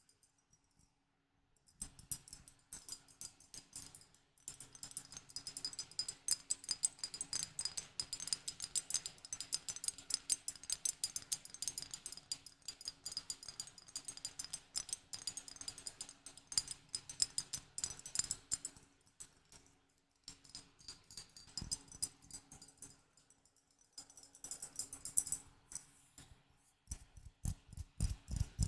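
Close-miked handling of a small object: dense, rapid fine clicking and crackling, with short pauses about a second in and again past the middle.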